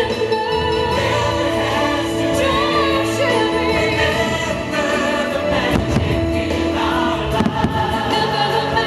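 A fireworks show's musical soundtrack: a choir singing held notes over orchestral backing, with a few sharp firework bangs about six and seven and a half seconds in.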